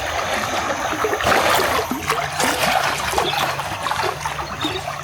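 Water splashing and trickling as Asian elephants bathe in a pool, with many small irregular splashes.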